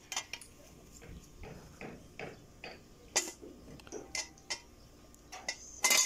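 Irregular light metallic clinks and knocks as the steel motor-mounting bracket of a Maytag washer is handled and fitted onto the motor, with the loudest knock about three seconds in and another near the end.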